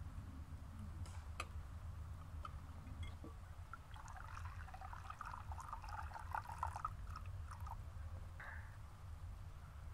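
Liquid trickling from a clay jug into a glass mixing bowl of batter, starting about four seconds in and running for about four seconds, after a couple of light clicks early on.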